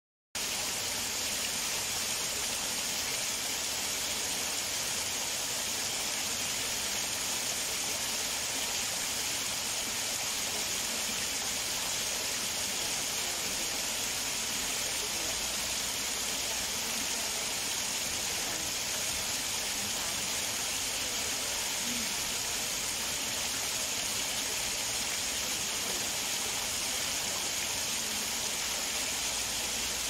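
Small waterfall splashing steadily down a series of low rock steps: an even, hissy rush of falling water that does not change.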